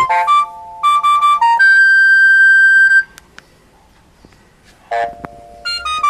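Alcatel OT-S121 mobile phone playing a ringtone preview: a quick run of electronic beeping notes, then a long held high note that cuts off suddenly about three seconds in. After a short pause with a click, the next ringtone's notes start near the end.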